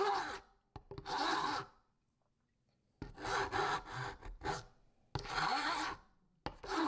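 Flat metal file rasping across the edge of sawn plywood in a series of strokes, with a pause of about a second a couple of seconds in: smoothing the coping-saw cut of a box-joint finger.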